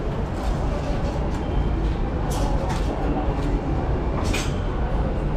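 Café background noise: a steady low rumble, with two short clicks about two and four seconds in.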